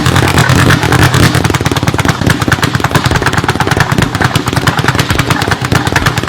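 Loud, rapid rattling clatter, about eight to ten sharp clicks a second over a steady low hum, cutting off abruptly at the end.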